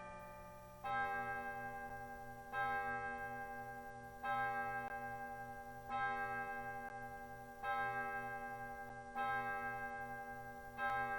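A single bell tolling on one note, struck seven times about every 1.7 seconds; each stroke rings on and fades before the next.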